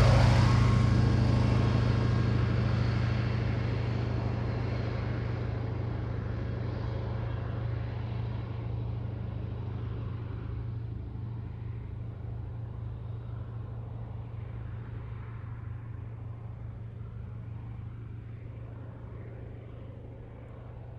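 Propeller plane's engine drone fading away after a low, fast pass. A steady low hum slowly dies off over about twenty seconds, and the higher frequencies fade first.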